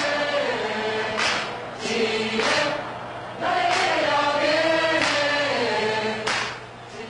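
Many voices singing a slow melody together in choir-like unison, the sound fading down near the end.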